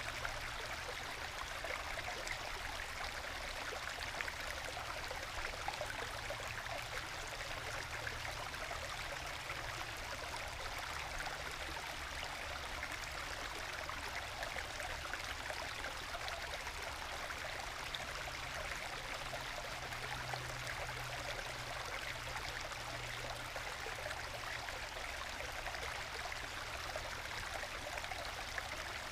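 Small forest stream babbling and gurgling as it trickles over small waterfalls worn into bedrock and into plunge pools between them: a steady, gentle flow of water.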